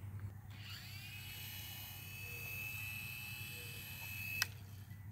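Small electric rotor motor of a toy remote-control helicopter whining as it spins up just after the start, holding a steady high pitch, then cutting off with a click near the end. Its battery is thought to be starting to die.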